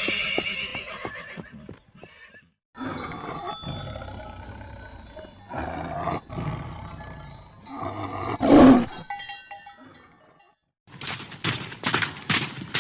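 A series of different farm animal calls played one after another, each lasting one to a few seconds, with short silent gaps between them. The loudest is a brief call about two-thirds of the way through. Near the end comes a run of rapid sharp clicks.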